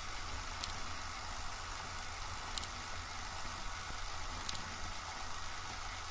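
Steady background noise: an even hiss over a low hum, with a faint click about every two seconds.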